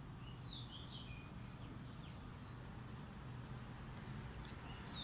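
Small bird chirping: quick runs of short, high, falling chirps about half a second in and again near the end, over a faint low rumble.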